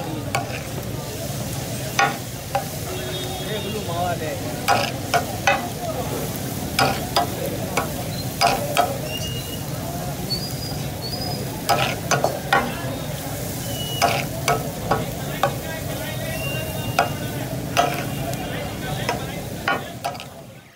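Chicken pieces sizzling in oil on a large flat tawa griddle, with irregular sharp clacks of a metal spatula and tongs striking and scraping the griddle.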